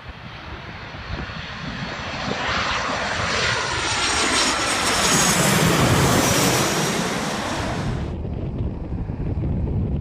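Boeing 737-800 jet airliner on final approach, passing low overhead. Its engine noise builds to a loud peak about halfway through, with a whine that falls in pitch as it passes. The sound cuts off abruptly near the end.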